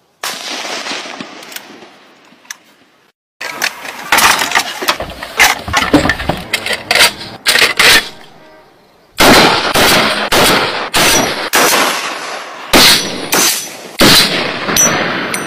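Repeated gunfire from rifles, sharp echoing reports in separate strings of shots, several a second in places. There is a brief silence about three seconds in and a short lull around the middle.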